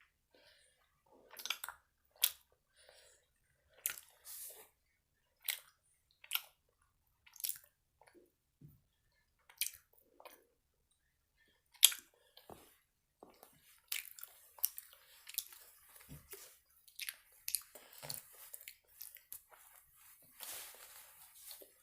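Close-up chewing of Airheads taffy candy: irregular sharp wet mouth smacks and clicks, coming faster in the second half.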